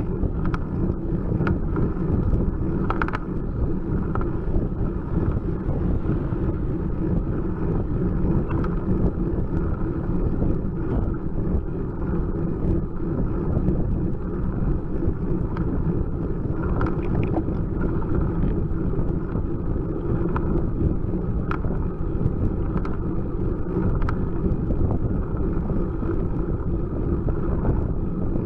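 Steady wind and road noise picked up by a bicycle's handlebar camera as the bike climbs at about 10 mph, with a few faint clicks.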